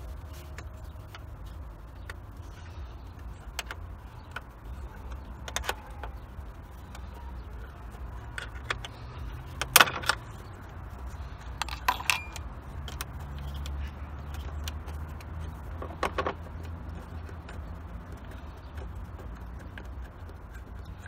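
Scattered sharp clicks and knocks of hand tools and parts being handled in a car's engine bay during disassembly, the loudest about ten seconds in, over a steady low hum.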